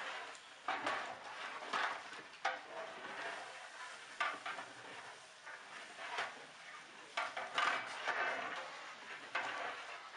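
A metal utensil scraping and knocking against a large metal cooking pot in irregular strokes about once a second, as when stirring a big batch of food.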